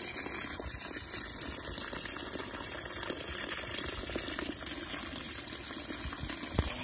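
A steady stream of water gushing from a pipe and splashing onto a crate packed with small live fish, with a short knock near the end.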